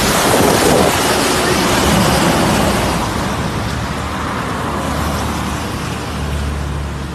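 Highway traffic: a truck passing close on a wet road, its tyre hiss loudest in the first few seconds and then fading, followed by a low steady rumble of passing traffic.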